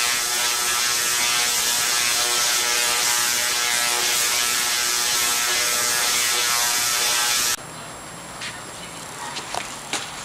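A Tesla coil firing, its arcs making a loud, steady buzz that cuts off suddenly about seven and a half seconds in; a few faint clicks follow.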